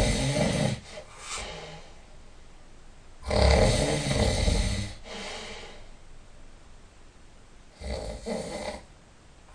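A sleeping person snoring with a rough, rattling snore about every four seconds, each followed by a softer breath; the last snore, near the end, is shorter and quieter.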